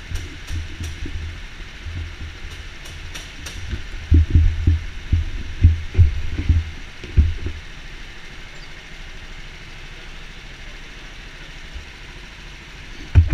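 Go-karts idling in the pit lane with a steady low rumble. A run of heavy low thumps comes from about four to seven seconds in.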